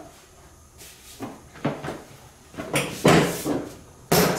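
ATV's plastic seat being pushed down and seated onto the frame: a series of knocks and rattling clunks, the loudest about three seconds in and just before the end.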